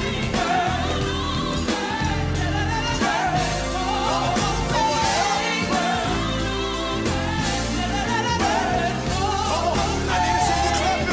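Gospel song: a singing voice with vibrato over band accompaniment and a steady bass line.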